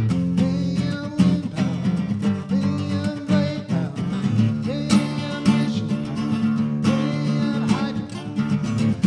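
Acoustic guitar strummed steadily, chords ringing in an instrumental passage.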